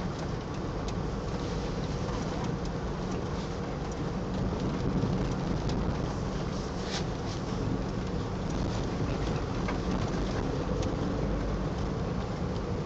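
Steady road and engine noise inside a moving car's cabin, with scattered light crinkles from a stiff PVC rain suit as the wearer shifts.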